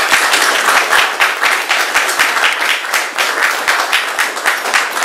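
A small audience applauding, dense and steady clapping.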